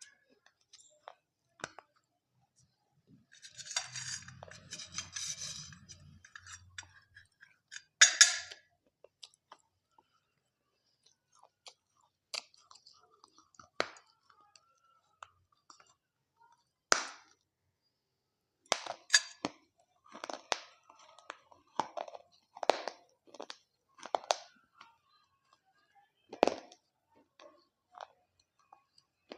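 Close-up crunching and chewing of dahi papdi chaat, the crisp fried papdi wafers crackling in separate bites with pauses between them.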